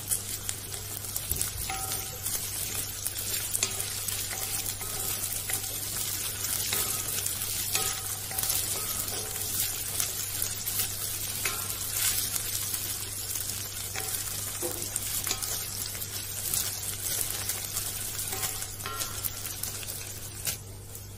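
Shredded fried chicken with onion and green chillies sizzling in oil in a wok, stirred with a wooden spatula that scrapes and knocks against the pan in frequent short strokes, over a steady low hum. The sizzling cuts off just before the end.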